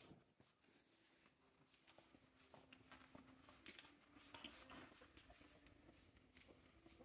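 Near silence with faint, scattered scratching and scuffling of pug puppies' paws on a quilted mat as they wrestle.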